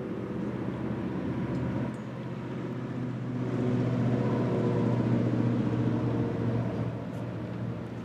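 An engine running steadily, swelling louder from about three and a half seconds in until about six and a half seconds, then easing back.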